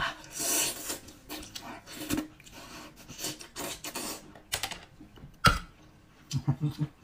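Close-up eating sounds: seafood slurped off a bamboo skewer, then wet chewing in repeated short bursts, with a sharp knock about five and a half seconds in.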